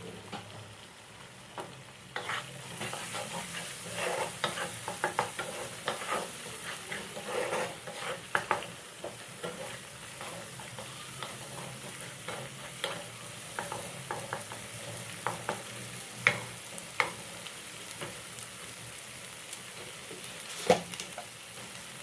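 A spatula stirring and scraping masala paste with freshly added ground spices as it fries in oil in a kadai. A steady sizzle runs under irregular scrapes and clinks, and one sharper clink comes near the end.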